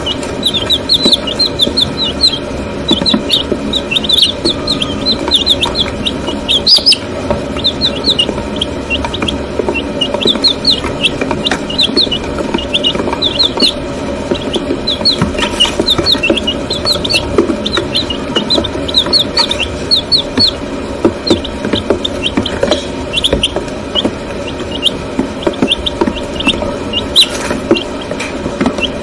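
Week-old White Leghorn chicks peeping continuously: a dense chorus of short, high peeps, several a second, each dropping slightly in pitch.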